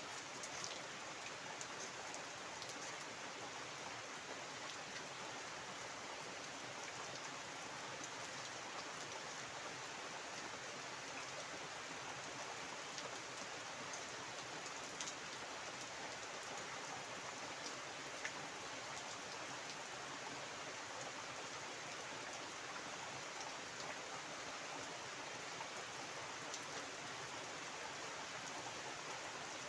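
Heavy rain falling steadily onto a flooded yard and garden foliage: a dense, even hiss of rain splashing into standing water, with now and then a sharper single drop tick.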